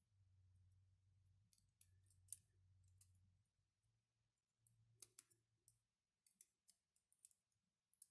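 Small, sharp clicks of 3D-printed plastic counter parts being handled and fitted together, coming in two scattered runs, over a faint low hum that stops about halfway through.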